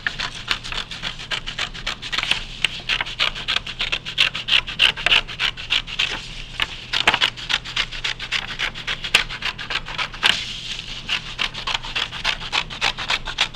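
Scissors cutting through blue construction paper in a steady run of quick, short snips.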